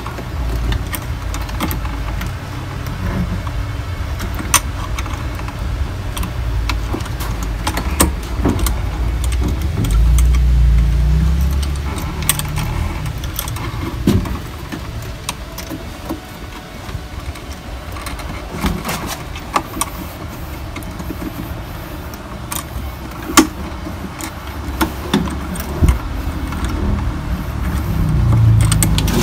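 Scattered clicks, knocks and clinks of plastic and metal parts being handled as a washing machine drain motor and its pull wire are worked onto the drain plug, over a steady low rumble.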